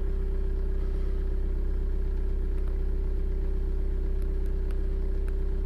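An engine idling steadily: a constant low drone with a steady hum over it, and a few faint ticks near the end.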